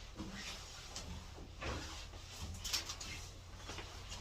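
Scattered clicks, knocks and rustling of a door or drawer being opened and things being handled and searched through, over a steady low hum.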